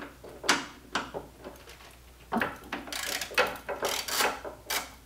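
Socket ratchet on an extension clicking as it turns out a 10 mm mounting bolt of the coolant expansion tank. A few scattered clicks come first, then from about two seconds in a steady run of quick back-and-forth strokes, about three bursts of clicking a second.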